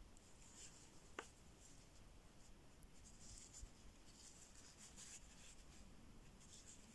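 Faint scratching and rustling of a slim metal crochet hook drawing thin cotton yarn through single crochet stitches, in short repeated strokes, with a small click about a second in.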